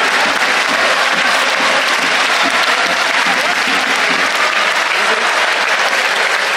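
Stadium crowd of football supporters applauding steadily at full time, with crowd voices mixed in.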